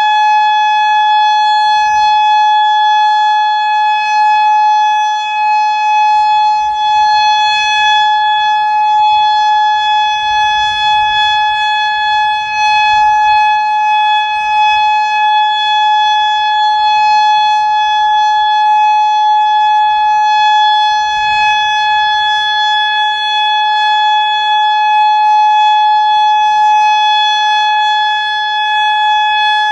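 Federal Signal Modulator 4016 outdoor warning siren sounding its steady Alert signal: one loud, unwavering tone held throughout, the signal sounded on its monthly test.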